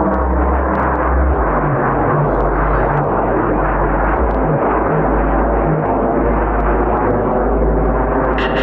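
Jet aircraft flying overhead, the engine noise loud and steady.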